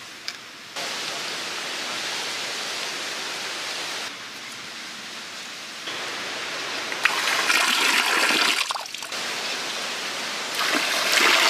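Water pouring and splashing, its level jumping in abrupt steps; it is loudest from about seven seconds in and again near the end.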